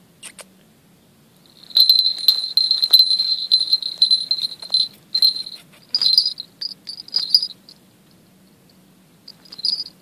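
Small brass falconry bell on a hawk's leg jingling as the hawk shifts and tugs at its prey. The ringing starts about two seconds in and runs for about three seconds. It then comes in a few shorter shakes, the last near the end.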